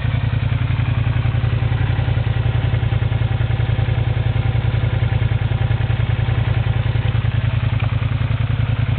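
2008 Suzuki SV650's 645 cc V-twin engine idling steadily, with an even low pulsing exhaust beat.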